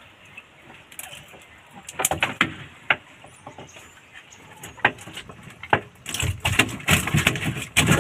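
Scattered knocks and thumps in a fishing boat's hull as a netted fish and the gill net are handled, sparse at first and growing busier near the end.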